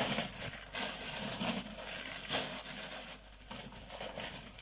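Plastic shopping bag and food packaging rustling and crinkling in irregular bursts as groceries are taken out and handled.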